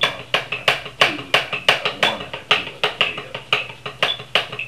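Wooden drumsticks on a drum practice pad playing a steady run of eighth-note triplets, an even, quick stream of strokes with some louder than others.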